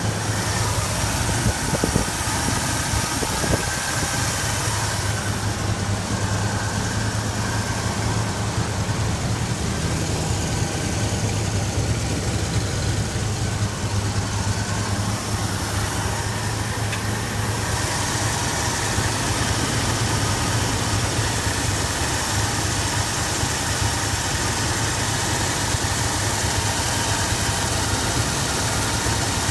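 1978 Ford F-150's engine idling steadily, with a few light knocks between about one and a half and three and a half seconds in.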